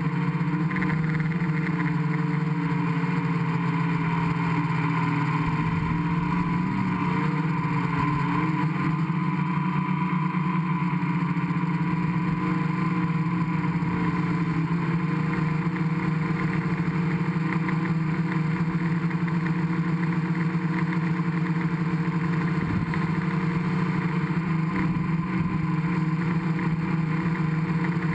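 Gaui 500X quadcopter's four electric motors and propellers buzzing steadily in flight, heard close up from a camera on the frame. The pitch wavers briefly about seven seconds in as the throttle shifts.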